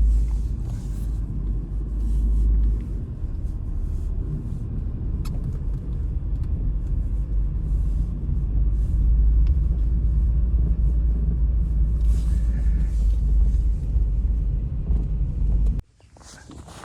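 Blizzard wind buffeting the microphone: a loud, steady low rumble that cuts off suddenly near the end.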